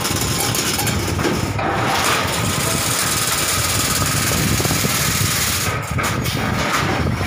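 Automatic chain link fencing machine running, a steady mechanical rattle of rapid fine ticks over a low motor hum as it weaves wire mesh.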